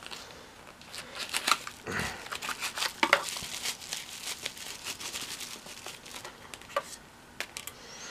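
Clear plastic packaging crinkling and rustling in the hands as a camera battery is unwrapped, with scattered small clicks and taps, busiest in the first few seconds.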